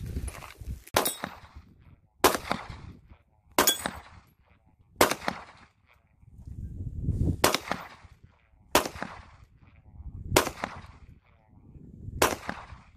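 Semi-automatic pistol fired eight times in slow, deliberate single shots, about one every second and a half, with a longer pause near the middle. Each shot is a sharp crack with a brief ring-out.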